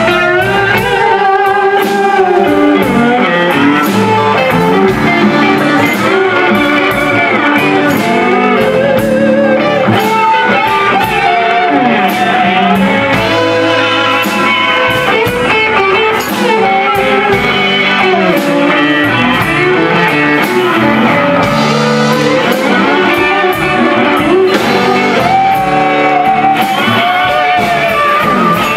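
Live blues band playing an instrumental section: an electric guitar lead with bending, wavering notes over bass and drums.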